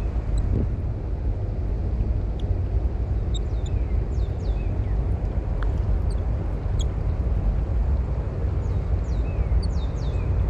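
Small birds giving short, high, falling chirps scattered throughout, over a steady low outdoor rumble.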